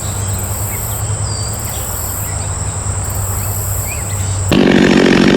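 Insects droning: a steady high-pitched trill with higher buzzes pulsing about once a second, over a low steady hum. Near the end a louder, low-pitched sound cuts in abruptly.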